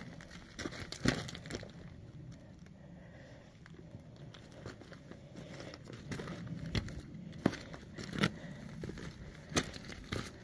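Footsteps crunching and scraping over loose rock and gravel, uneven and irregular, with a few sharper crunches.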